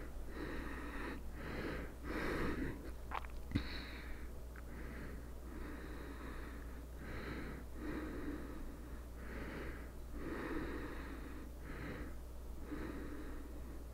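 A woman breathing audibly in even breaths, about one a second, while holding a yoga plow pose. There is a single light tap about three and a half seconds in.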